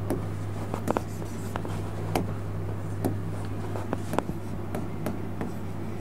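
Stylus tapping and scratching on an interactive touchscreen board: about ten light, irregular taps, over a steady low hum.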